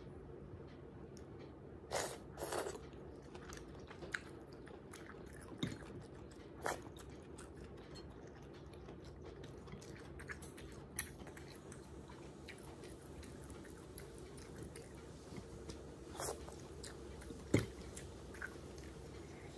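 Close-miked eating by hand: chewing and wet smacks as fingers work through goat offal curry and rice, with scattered sharp clicks over a steady low hum.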